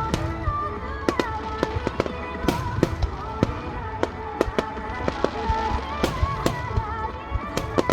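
Fireworks bursting in a rapid, irregular run of sharp bangs, about two a second, with music and voices underneath.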